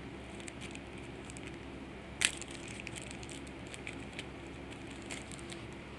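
Foil Yu-Gi-Oh booster pack crinkling and crackling as it is torn open by hand, with one sharp snap about two seconds in.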